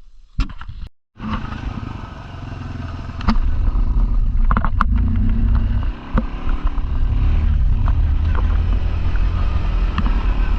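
Four-wheeler (ATV) engine running as the quad rides, cut off by a brief gap about a second in, then getting louder about three seconds in, with a few sharp clanks.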